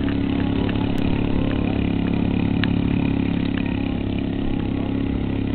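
Engine of a large radio-controlled model airplane idling steadily on the ground.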